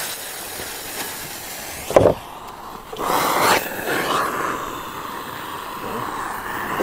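Ground spinner firework: a sharp crack about two seconds in, then from about three seconds a steady hiss as it burns, loudest in its first half-second.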